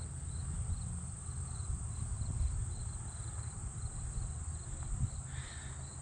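Insects chirping in the grass: a cricket pulsing about three times a second over a continuous high insect trill, with a low rumble underneath.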